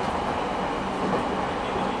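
Steady running noise heard inside a JR East 209 series 3000 subseries electric train's motor car as it travels along the line: an even rumble of wheels on the rails, with no sudden knocks or changes.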